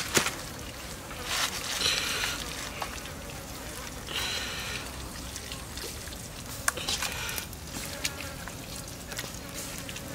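Wet squelching and smearing of raw pork ribs being rubbed and turned by hand in a pan of chopped spice marinade, in several short bursts. Insects buzz steadily behind.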